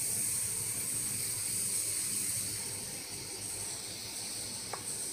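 An old, cheap switch-mode mobile phone charger board, live on the mains, giving off a steady high-pitched hissing buzz. It is the sign of weak, low-capacitance capacitors in the charger's auxiliary and output circuit.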